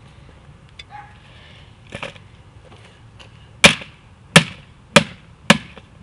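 A run of sharp, loud cracks about two a second, starting about three and a half seconds in, after a couple of faint knocks.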